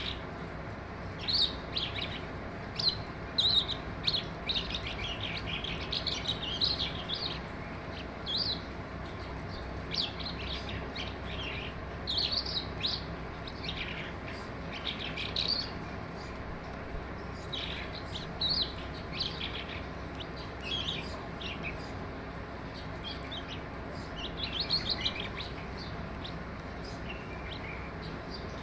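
Skylark singing in short, quick warbled phrases with brief pauses between them, over a steady background hiss.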